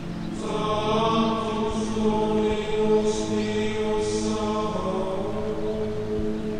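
Slow sung chant with long held notes, as background music.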